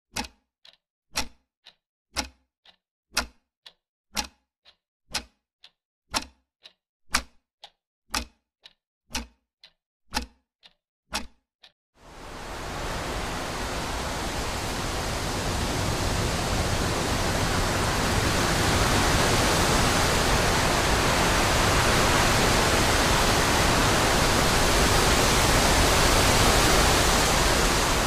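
Sharp ticks, a strong one about once a second with a fainter one between, for the first twelve seconds or so. Then steady wind rushing through trees fades in and swells.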